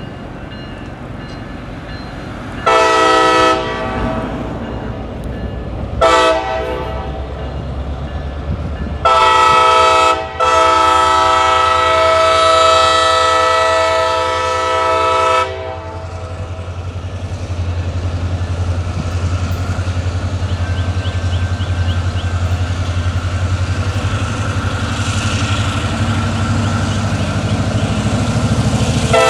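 CSX GP38-3 diesel locomotive sounding its five-chime Nathan K5LA air horn: two short blasts, then a short one running straight into a long blast of about five seconds. The locomotive's diesel engine then rumbles steadily and grows louder as it passes under full throttle (notch 8), with wheels clattering over the rail joints.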